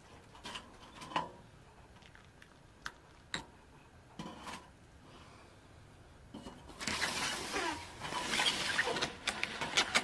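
A few light clicks and knocks of glass tableware on a wooden table, then, about seven seconds in, a long crackling rustle of a clear plastic clamshell food container being handled and set down.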